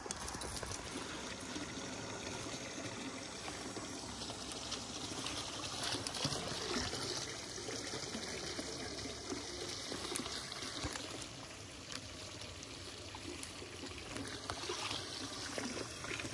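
Steady trickle of shallow water in a ditch, with grass and leaves rustling as the dogs push through the undergrowth.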